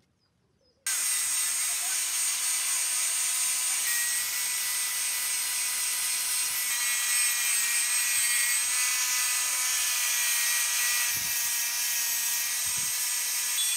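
Electric angle grinder cuts in sharply about a second in and runs with a steady high whine and hiss, its abrasive disc grinding a steel knife blade, the pitch shifting slightly as the disc is pressed onto the metal. Two brief low knocks come near the end.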